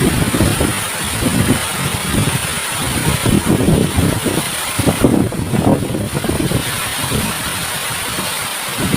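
Rushing water of a waterfall, heard as a steady hiss, with wind buffeting the microphone in irregular low rumbles.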